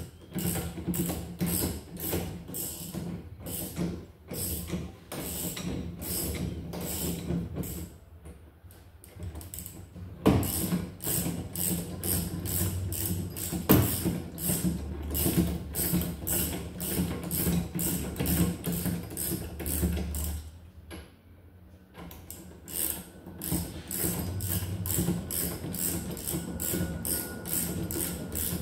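Ratchet wrench clicking in quick repeated strokes as a nut is turned on a rear suspension arm bolt, over a steady low hum. Two sharper knocks stand out, one about ten seconds in and one about fourteen.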